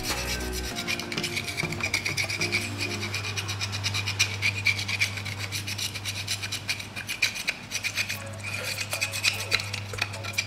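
Metal pick scraping carbon crust out of the ring grooves of a Suzuki Satria FU 150 piston, with rapid scratchy strokes. A short pause comes about eight seconds in before the scraping resumes.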